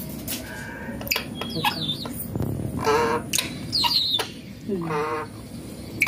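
Bird calls, most likely from a caged Indian ringneck parakeet: a few short, sharp high calls that bend in pitch, and two longer wavering calls about three and five seconds in, the second falling in pitch.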